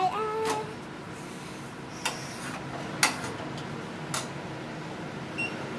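A few sharp clicks, about a second apart, of a metal spatula against a nonstick frying pan as a roti is turned and pressed, over the steady hiss of a gas burner.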